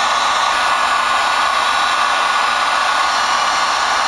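Electric heat gun blowing hot air steadily, warming a heated handlebar grip so that it will slide onto the bar.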